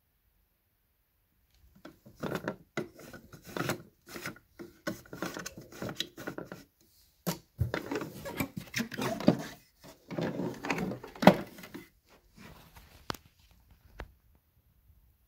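Handling noise from a plastic canister vacuum being turned and moved about: irregular clicks, knocks and rustling, busiest in the middle and thinning out near the end.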